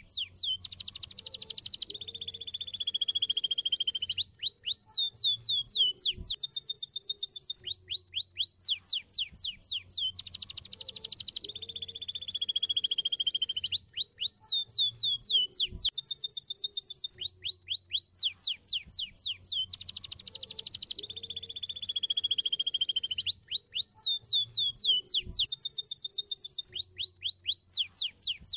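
Domestic canary singing: fast trills of downward-sweeping notes and long, slowly falling whistled notes. The same song sequence comes round about every ten seconds, three times over.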